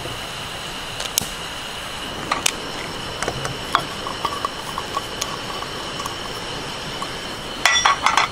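Clinks and clicks of camp cookware and utensils being handled while coffee is made: a few single sharp clicks, then a quick cluster of clinks near the end, over a steady hiss with a thin high tone.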